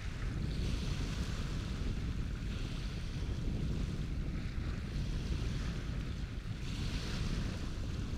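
Wind buffeting the microphone with a steady low rumble, over waves washing in repeated swells of hiss every few seconds.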